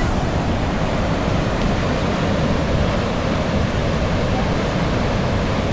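Mistaya River rushing through a narrow rock canyon: a steady, unbroken sound of fast-flowing water.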